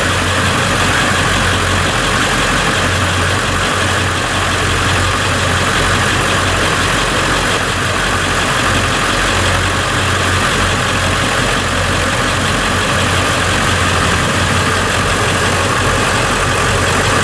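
Ford 7.3 liter Power Stroke turbo diesel V8 in a 2000 Ford F-250 idling steadily.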